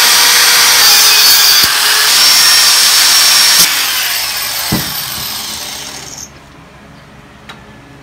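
Angle grinder with a thin cut-off disc cutting a slot through a steel flat bar. The cut stops sharply after about three and a half seconds, and the disc then winds down and stops about six seconds in, with a single knock partway through.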